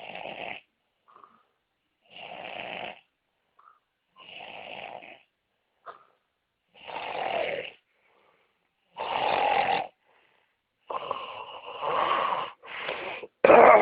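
A sleeper snoring loudly, each snore a rough rasp about a second long, coming roughly every two seconds. Near the end the snores crowd together, three or four in quick succession, the last the loudest.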